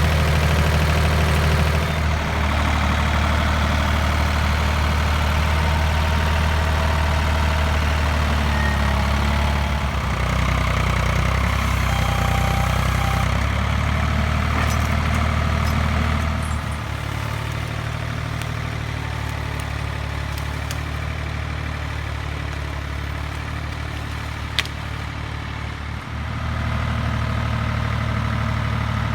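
Small tractor's engine running steadily, its speed and load shifting several times, with a single sharp click near the end.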